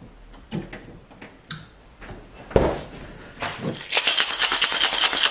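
Ice rattling hard and fast inside a glass mason-jar cocktail shaker with a metal lid, starting about four seconds in. Before that come a few knocks, one loud thud about two and a half seconds in.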